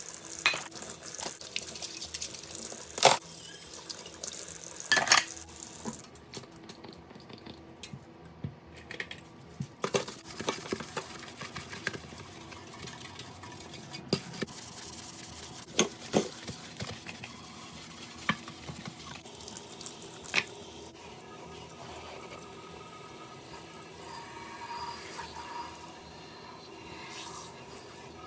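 Dishes being washed at a kitchen sink: tap water running, with dishes clinking and knocking against each other. The running water stops about six seconds in, and sharp clatters come every few seconds after that.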